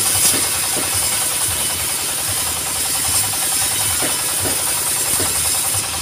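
Portable band sawmill running on its single-cylinder diesel engine, with a steady low engine pulse under a high hiss as the band blade cuts through a mahogany log.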